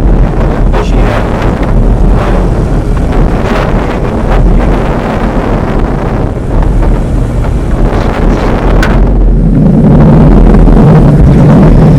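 Wind buffeting the microphone: a loud, fluctuating low rumble that grows stronger near the end.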